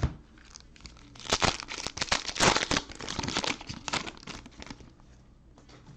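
Cellophane wrapper of a football card cello pack being crinkled and torn open: a dense crackling run of about four seconds, after a single knock at the start.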